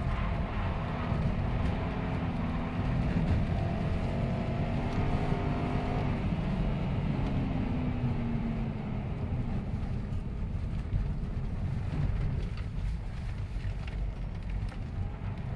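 Subaru Impreza STI's turbocharged flat-four engine heard inside the cabin, rising in pitch as the car accelerates for the first several seconds, then falling as it eases off. Low road and tyre rumble runs under it throughout.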